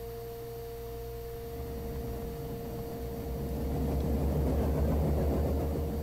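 Cabin noise of a small propeller passenger plane rolling out after landing: a steady engine-propeller hum with a low rumble that swells about halfway through and then eases.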